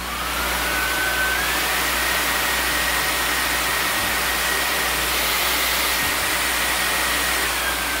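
Samsung Bespoke Jet cordless stick vacuum's motor running with a steady rush of air and a high whine. The pitch steps up twice near the start as the power is raised to jet mode, holds steady, then drops back a step near the end as the power is turned down.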